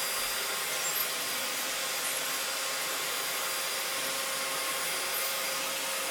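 Vacuum cleaner running steadily, a constant motor hum and hiss.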